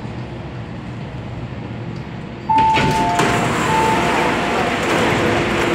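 MTR A-Train's cabin rumble at a stop, then about two and a half seconds in the train and platform doors slide open with a sudden loud rush of air and a two-note chime that sounds twice.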